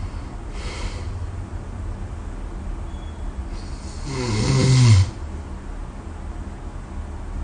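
A sleeping person snoring: a soft breath about half a second in, then one loud snore that builds over about a second and a half, wavering in pitch, and cuts off sharply about five seconds in, over a steady low hum.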